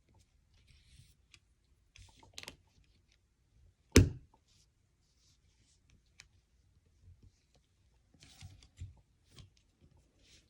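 Lego bricks being handled and pressed together: scattered light plastic clicks and faint rustling, with one sharp, louder click about four seconds in.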